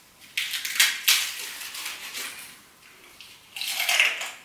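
A crisp homemade fortune cookie cracked and broken apart by hand, with several sharp crackling snaps in the first second or so, then a crunch as a piece is bitten near the end.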